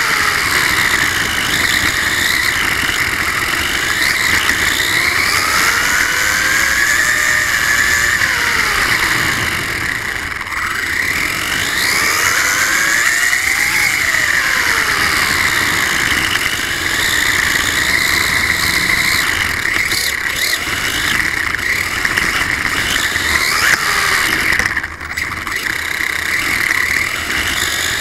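Whine from the brushless electric motor and gears of a Losi 1/24-scale RC car, close to the microphone, rising and falling in pitch again and again as the car speeds up and slows down. Underneath runs a steady rush of small tyres on rough pavement. The whine eases off briefly twice.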